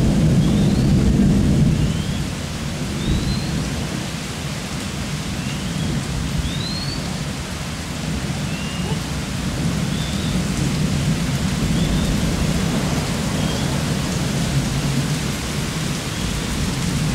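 Rolling thunder rumbling low, dying down about two seconds in and swelling again later, over a steady hiss of rain. Short rising high chirps repeat roughly once a second above it.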